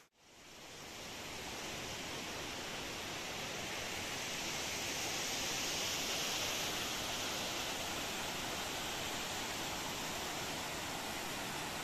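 Steady rush of muddy runoff water streaming over loose rocks and landslide debris. The sound drops out for a moment at the very start, then swells back up over the first couple of seconds.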